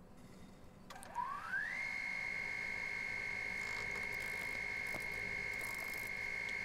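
Wood lathe starting up: its motor whine rises in pitch over about a second, then holds steady as the lathe spins a large wooden disc at speed.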